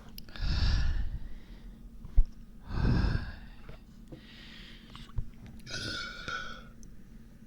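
A person breathing heavily through the mouth: four audible breaths, with a sharp click about two seconds in.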